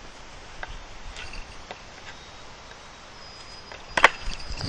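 Small rustles and clicks of jute twine being wound and tied around a wooden trellis pole, with one sharp knock about four seconds in, over a steady low rumble of wind on the microphone.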